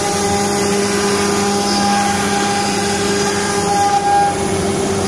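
CNC router spindle running steadily as its bit carves a wooden panel: a loud, even machine noise with a steady hum.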